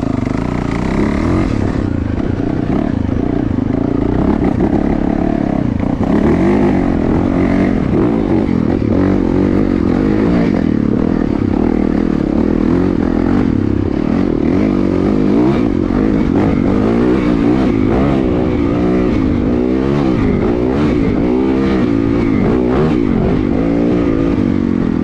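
Yamaha YZ450FX's single-cylinder four-stroke engine running under way, its pitch rising and falling as the throttle opens and closes, with scattered clatter and knocks from the bike over rough ground.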